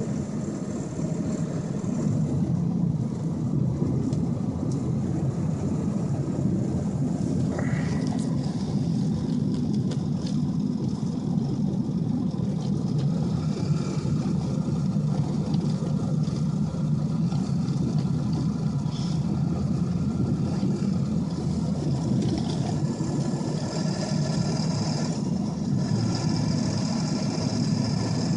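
Cab interior of a 2002 Ford F-250 pickup driving on a snowy road: steady engine and road noise.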